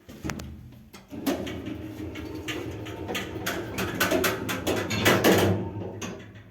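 2008 Shcherbinka Lift Plant (ЩЛЗ) elevator with a loud low hum, overlaid by many quick clicks and rattling knocks that grow thicker in the second half.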